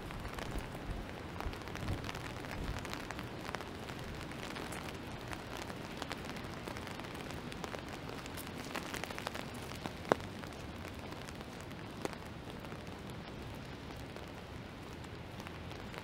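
Steady rain falling, with scattered drops tapping close by. A single sharp click about ten seconds in stands out above the rain.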